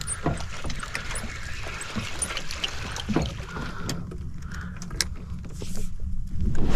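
Wind and water noise around a small fishing boat: a steady low rumble with scattered light knocks and clicks.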